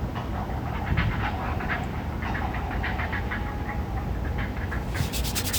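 A chorus of many short, repeated animal calls overlapping one another over a steady low rumble, with a burst of rapid clicking near the end.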